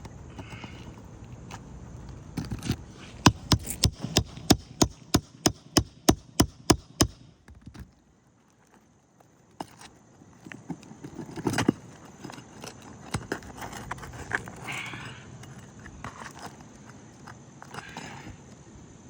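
Sharp metal taps in a quick run, about three a second for some four seconds, then a pause and scattered knocks and scrapes: a roofing tool being worked under an asphalt shingle to free its nails.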